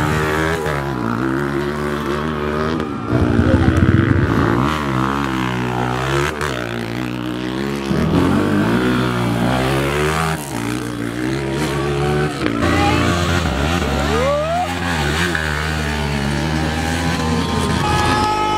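Dirt bike engine idling and being blipped, its pitch rising and falling again and again, with a louder burst of revving about three seconds in.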